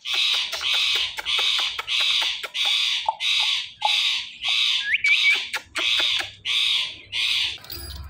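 Indian ringneck parrot giving a rapid run of harsh squawks, about two a second, with a few short rising chirps in the middle; the calls stop just before the end.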